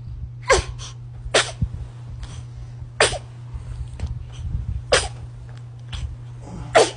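Newborn baby sneezing: five short, sharp sneezes spread through, roughly one every one to two seconds, over a low steady hum.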